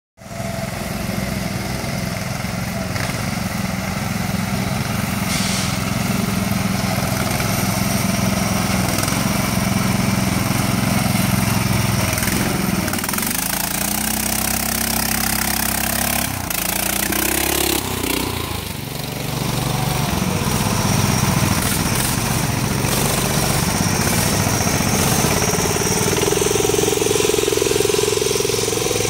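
Off-road modified lawn tractor engines running hard as the tractors drive through deep mud. The engine pitch rises and falls with throttle changes midway through.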